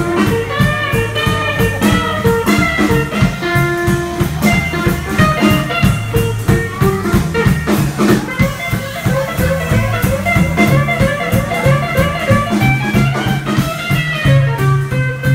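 A live blues band plays with electric guitar, upright double bass and drum kit: the guitar plays a run of changing notes over a steady walking bass and drums.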